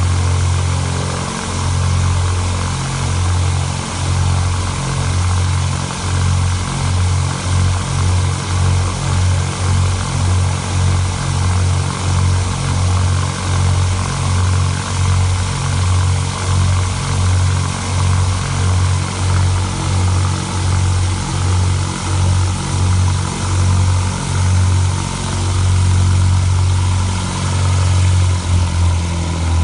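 The two piston engines of a twin-engine light aircraft idling on the ground, propellers turning. The engine drone swells and fades evenly about one and a half times a second, the beat of two engines running at slightly different speeds, and evens out for a few seconds near the end.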